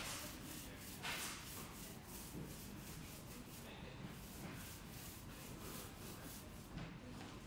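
Small paint roller rolled over a wall in repeated strokes, a faint rubbing hiss with each pass, the loudest right at the start and about a second in.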